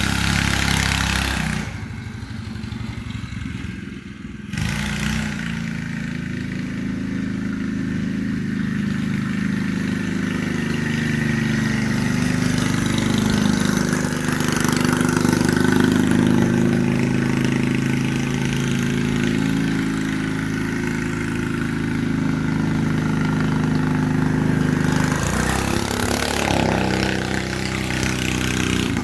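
Straight-piped Predator 212 single-cylinder engine on a go-kart running under throttle. It drops off about two seconds in, comes back up about four and a half seconds in, and its pitch rises and falls with the throttle.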